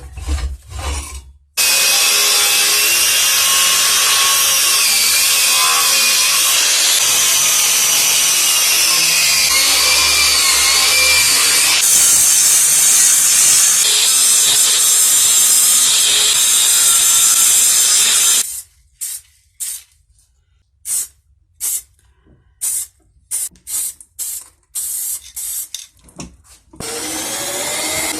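Power tool working on metal: a long continuous run with a pitch that wavers under load, then a string of short bursts, then running steadily again near the end.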